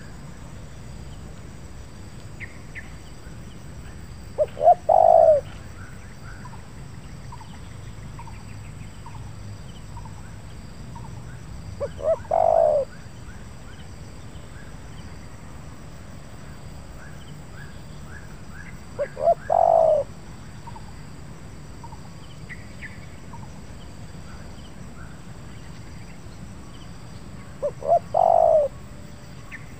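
Spotted dove cooing, four calls about seven to eight seconds apart. Each call is two short stuttering notes and then one long deep coo, the stuttered call that bird-lurers prize in a calling bird. Other small birds chirp faintly in the background.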